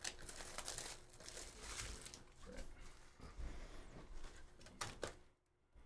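Trading-card pack wrapper and cardboard card box being handled: irregular crinkling and rustling with small sharp clicks, which stops briefly near the end.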